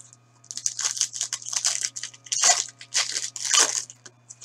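Packaging being torn and crinkled open as a sealed trading-card box and pack are unwrapped: a quick run of short rustling, crackling rips.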